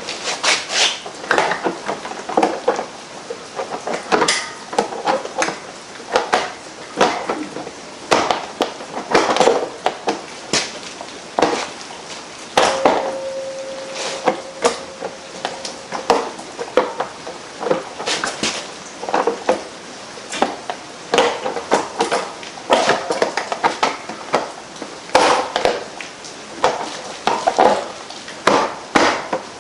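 Irregular metal clinks, taps and knocks of hand tools and parts being handled while working on a Predator 670 engine on a workbench. A steady tone lasts about three seconds near the middle.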